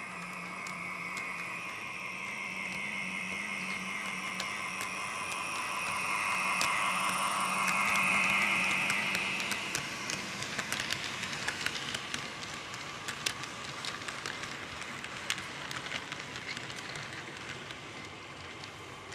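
HO scale model GP38-2 diesel locomotive's electric motor and gears whining as it runs past, getting louder to a peak about eight seconds in and then fading. After that come the rapid, irregular clicks of the freight cars' wheels over the track joints as the train rolls by.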